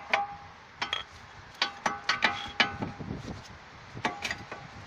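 Sharp metallic clinks and knocks with a short ring, about ten at irregular intervals, as a car's brake caliper is fitted back over the rotor and new brake pads.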